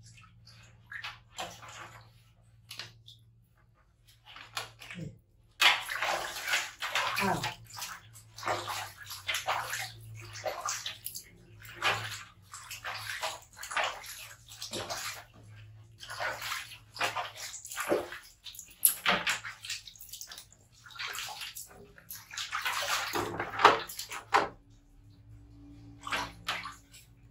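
Bathwater splashing and sloshing in a large metal basin as a hand scoops and pours it over two baby monkeys. The splashes come irregularly, sparse at first and then frequent from about five seconds in.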